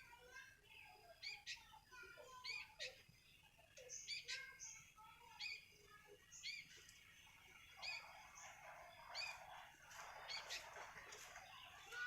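Sooty-headed bulbul (kutilang) giving short, sharp, high calls about once a second, with a stretch of busier chattering about two-thirds of the way through. Faint.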